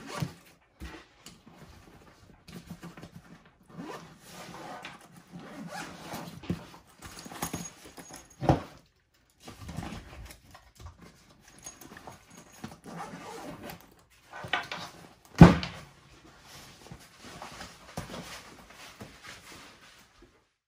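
A Wandrd Prvke 21L backpack being handled and closed up: irregular rustling of its coated fabric and straps with small clicks, and two louder knocks, one about a third of the way in and one about three quarters in.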